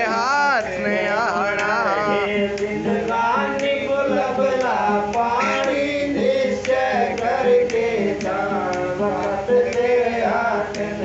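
Men's voices singing a Radha Soami shabd, a devotional hymn, in a drawn-out chanting style. Light clicks come at a regular pace underneath, keeping time.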